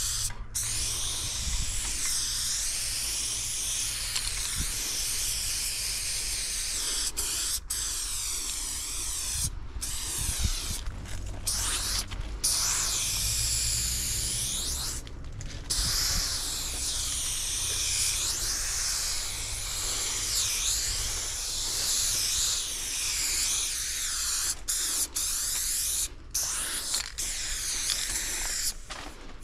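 Aerosol spray-paint can hissing in long sprays, broken by several brief pauses as the nozzle is let go and pressed again.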